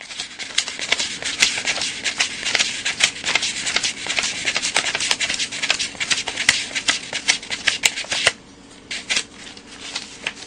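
A stack of paper banknotes counted by hand, the bills flicked over one after another with the thumb in a fast, dense run of papery flicks and rustling. About eight seconds in it thins to a few scattered flicks.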